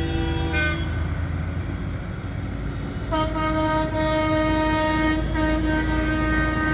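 Vehicle horns of a passing convoy of tractors and cars, sounded in long held blasts over the low rumble of traffic. One horn stops about a second in, and another starts about three seconds in and holds on.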